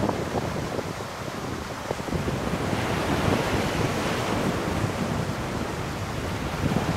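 Surf breaking and washing on a pebble beach, with wind buffeting the microphone. The wash swells about three seconds in.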